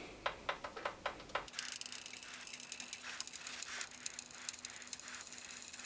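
A Tefal OptiGrill XL contact grill, switched on and heating up, gives a few faint clicks, then a faint steady hum with light ticking.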